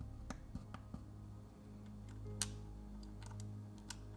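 Soft background music with held low notes, over a handful of sharp clicks and taps as a plastic spudger presses the new digitizer's flex-cable connectors onto an iPad's logic board; the loudest click comes about two and a half seconds in.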